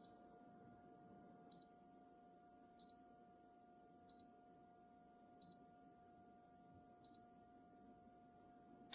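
Six faint, short, high electronic beeps, about one every 1.3 seconds, over a steady low electrical hum.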